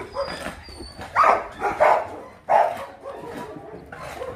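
A dog barking at a shelter: three loud barks from about one to three seconds in, then quieter ones.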